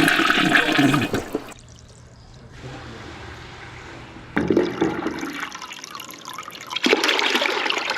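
A toilet flushing, water rushing down the bowl. The rush stops abruptly about a second and a half in, leaving a quieter stretch, then starts again suddenly past the middle and is loudest near the end.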